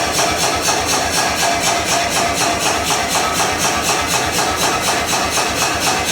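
Power hammer running, striking hot steel in a fast, even rhythm of blows while drawing out the cheeks of axe heads.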